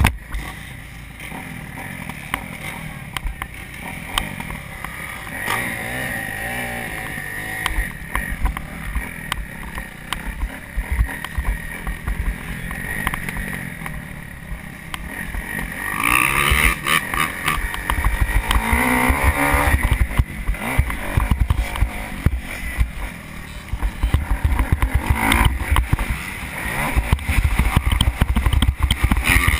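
Kawasaki KX250F four-stroke single-cylinder motocross engine running at modest revs. About halfway through it gets louder and revs up and down hard as the bike is ridden along a dirt track, with wind buffeting the microphone.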